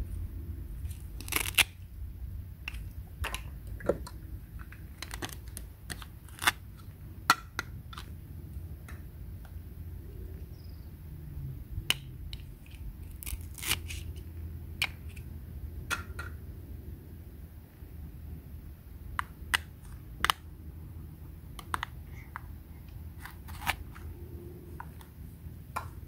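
Plastic toy fruit and vegetables being cut apart with a plastic toy knife: an irregular string of sharp plastic clicks and taps as the knife strikes and the pieces come apart, over a low steady rumble.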